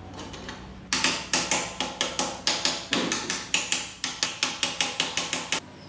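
A hammer strikes a motorcycle's top triple clamp to drive it down onto the fork tubes and steering stem: a quick run of about twenty sharp metal-on-metal blows, roughly four a second. Each blow rings briefly. The blows start about a second in and stop shortly before the end.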